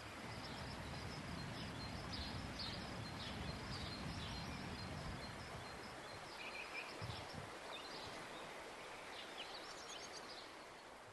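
Faint outdoor ambience: a steady hiss with small birds chirping now and then, fading out at the end.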